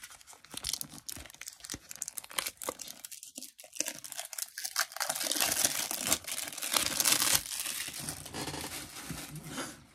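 Thin plastic seal wrapping being torn and crinkled off a sealed package, a dense crackling rustle that eases briefly a little after three seconds in and is loudest in the second half.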